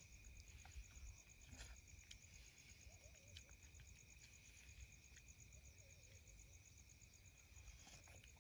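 Crickets chirping faintly and steadily, with a few soft clicks.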